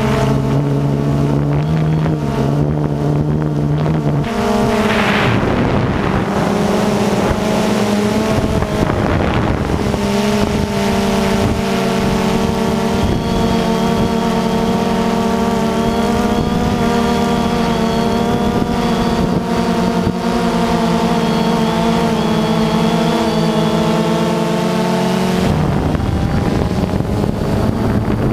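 DJI Phantom 2 quadcopter's four electric motors and propellers whirring in flight, recorded by the camera mounted on the drone itself. It is a loud, steady hum of several pitches, which shift a few times as the motor speeds change.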